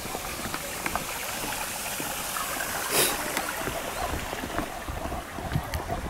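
Footsteps of a person and a golden retriever walking on a wooden boardwalk, an uneven run of knocks on the planks, with a brief loud rush of noise about three seconds in.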